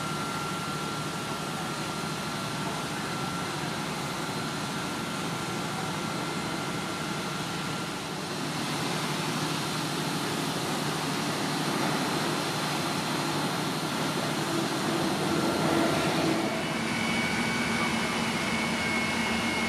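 Fire engines' engines and pumps running at the fireground in a steady drone, with faint held whining tones. About three-quarters of the way through the drone changes to a steadier hum with a clearer held tone.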